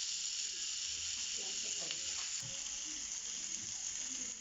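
Slices of a vegetarian gluten roll, spread with chimichurri, sizzling steadily as they roast.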